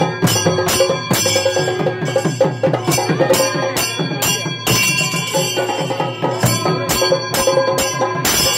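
Traditional temple percussion ensemble playing: rapid, dense drum and cymbal or bell strikes over sustained steady tones.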